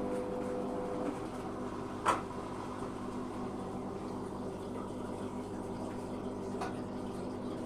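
Zanussi FA623 washing machine running mid-cycle, with water rushing and sloshing over a steady hum. A steady tone stops about a second in, then a sharp click comes about two seconds in and a fainter one near the end.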